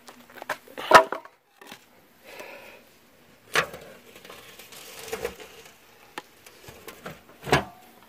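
Knocks and scrapes of a galvanized metal washtub being shifted and a wooden board wedged under its rim to prop it up. The loudest knock comes about a second in, with two more near the middle and near the end.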